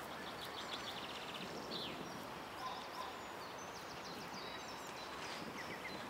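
Small songbirds singing outdoors: rapid high trills and chirps come and go over a steady background hiss.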